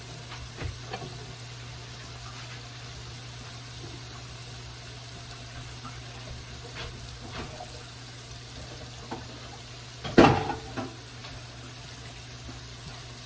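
Battered oyster mushrooms frying in hot oil in a pan, giving a steady sizzle. A few light clicks and one loud knock of a utensil or dish come about ten seconds in.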